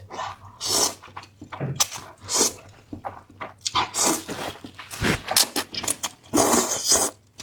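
A person slurping and chewing spicy noodles: repeated wet, hissing slurps with smacking chews between them, the longest slurp near the end.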